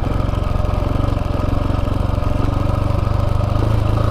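Single-cylinder four-stroke dirt bike engine running at a steady low throttle while riding, the engine note growing slightly louder near the end.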